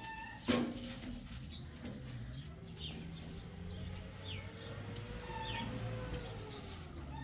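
Plastic broom sweeping a concrete yard in short strokes, with small birds chirping now and then. A sharp knock about half a second in is the loudest sound.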